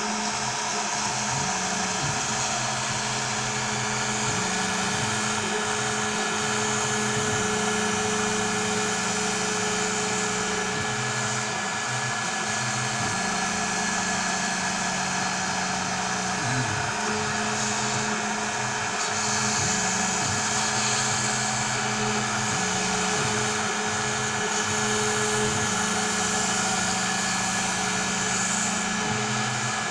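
Onefinity CNC router cutting foam board: the router spindle runs with a steady whine while the stepper motors' low hum jumps between pitches as the axes move and change direction.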